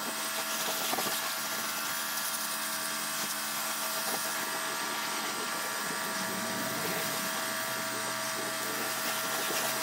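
Electric mini pressure washer (jet wash) running steadily, its motor hum under the hiss of the water jet, pre-rinsing a car.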